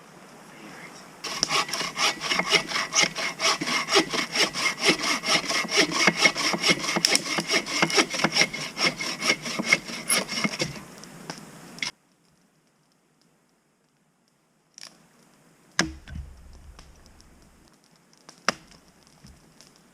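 Agawa Canyon Boreal21 folding bow saw cutting through wood with fast, even back-and-forth strokes for about ten seconds. The sawing stops suddenly, and a few seconds later come two sharp knocks.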